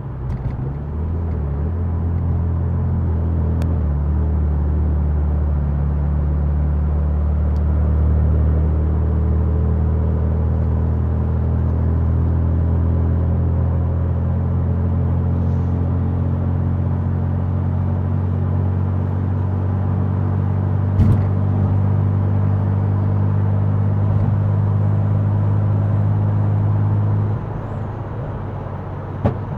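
Tuned twin-turbo V6 of an Infiniti Q60 cruising under steady throttle, a deep even drone heard inside the car, with one sharp pop about two-thirds of the way in. The drone drops in level near the end.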